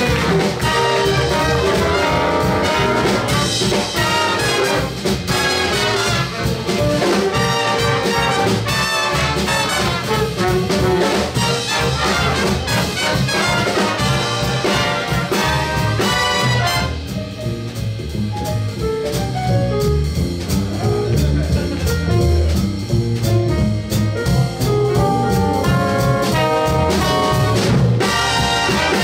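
Jazz big band of saxophones, trumpets, trombones, piano and upright bass playing a swing chart as a full ensemble. About two-thirds of the way through the upper range thins out and the lower parts carry on, then the full band comes back in near the end.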